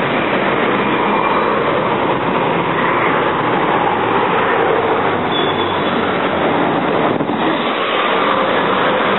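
Steady road-traffic noise from a busy multi-lane city avenue, with cars and buses driving past.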